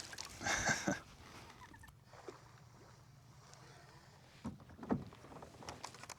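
Brief rustling and knocking of gear being handled in a fishing kayak: a noisy stretch in the first second, then a few short knocks about four and a half and five seconds in.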